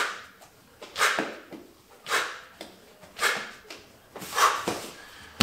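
A man's forceful exhalations in a steady rhythm, one sharp breath with each spin of a Bulgarian bag, about once a second. A thud comes right at the end as the bag is set down on the mat.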